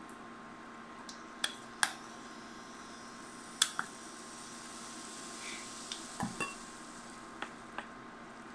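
A few sharp metal clinks as a stainless steel bowl knocks against the rim of a frying pan while diced tomato is tipped and scraped in, the loudest about a third of the way through. A faint steady hum runs underneath.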